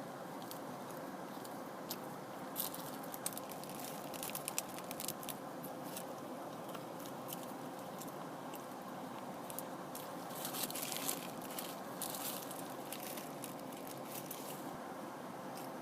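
Close-miked eating: scattered crisp clicks and crunches of biting and chewing over a steady hiss, clustered a few seconds in and again past the middle.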